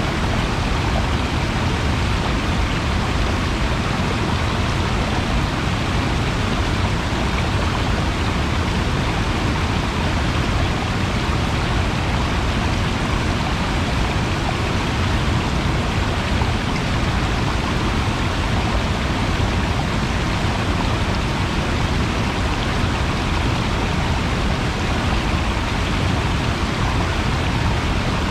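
Flowing water rushing steadily, an even unbroken rush with a deep rumble underneath.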